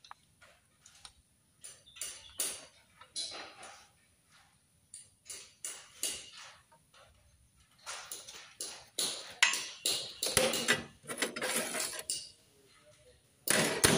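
Metal hand tools clinking, knocking and scraping against the parts of a Toyota 2TR engine in irregular clatter. It is sparse at first, gets busier and louder about halfway through, and ends with a loud clank.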